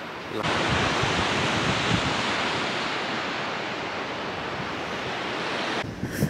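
Sea surf breaking in a rocky cove, heard as a steady rush mixed with wind on the microphone. It starts abruptly about half a second in and cuts off abruptly near the end.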